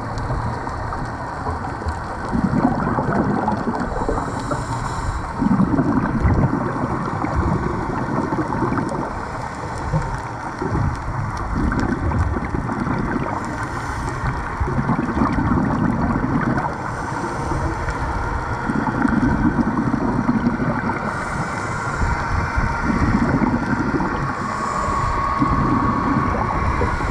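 Scuba regulator breathing recorded underwater: gurgling bursts of exhaled bubbles every two to three seconds over a steady underwater hiss.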